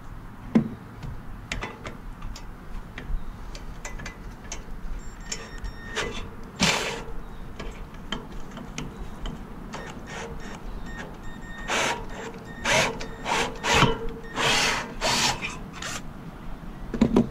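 Cordless drill with a 1/2-inch bit boring a bolt hole into the dock for the kayak launch's mounting bracket. It runs in stops and starts, with the loudest spells in the second half.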